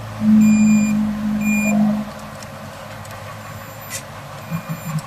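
Two short high-pitched beeps from a small piezo buzzer driven by an Arduino, sounding over a loud steady low hum that lasts about two seconds. There is a click about four seconds in, and near the end a rhythmic beat of background music begins.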